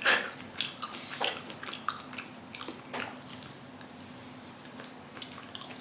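Wet chewing and mouth sounds of a person eating raw chicken: a few moist clicks and smacks at uneven intervals, the loudest right at the start.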